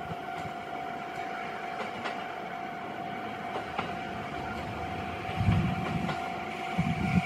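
Level-crossing warning bell ringing steadily as one unbroken tone, over the low rumble and occasional wheel clicks of a JR East 701-series electric train pulling away along the line.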